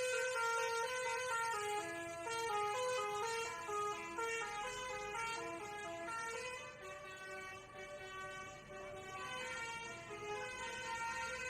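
Basuri telolet bus horn playing a tune: a quick run of stepped multi-tone air-horn notes, one after another, getting somewhat quieter in the second half.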